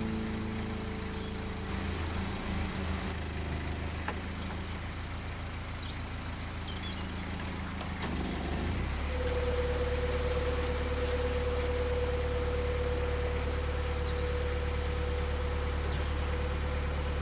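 Narrowboat engine running at idle. About eight seconds in it picks up and gets a little louder, with a steady whine added on top.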